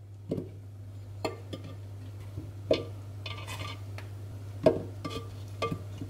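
Small peeled onions dropped one at a time into an unglazed clay güveç among potatoes: a handful of separate knocks about a second apart, each with a short ringing tone from the clay pot. A steady low hum runs underneath.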